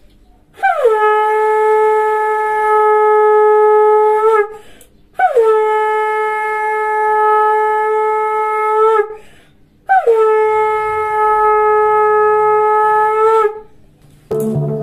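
Conch shell (shankha) blown in three long blasts. Each blast slides quickly down in pitch at the start, then holds one steady, bright note for about three seconds before breaking off. It is sounded to mark the close of a puja.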